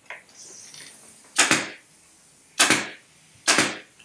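Pneumatic upholstery staple gun fired three times into the fabric of a chair back: three sharp shots, roughly a second apart, the last two closer together.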